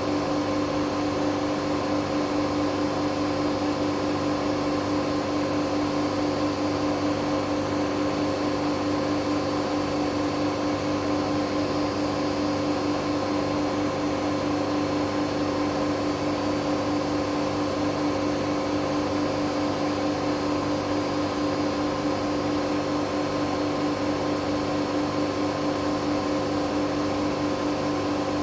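Hoover Dynamic Next washing machine spinning on its spin-only programme: a steady motor whine over a constant hum, with no change in pitch or level.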